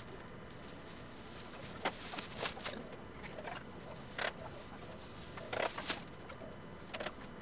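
Dry, cut napier grass rustling and crackling in short bursts as the stalks are handled, several separate rustles a second or so apart.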